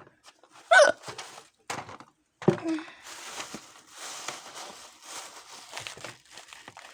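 Two short, sharp involuntary hiccups from a girl: a loud squeaky one about a second in and a lower one at about two and a half seconds. They are followed by several seconds of rustling and light clattering as small items and jewelry are rummaged through.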